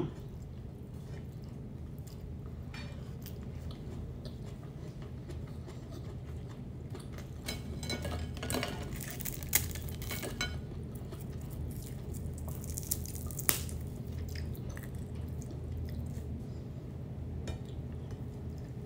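Fried dried fish being torn apart by hand over a plate: faint crackles and soft clicks, with two sharper taps on the dish a few seconds apart past the middle, over a low steady hum.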